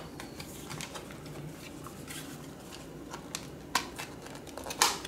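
Plastic blister packaging of a microSD card being handled and pried open by hand: faint crinkling with a few sharp plastic clicks and cracks, the loudest near the end.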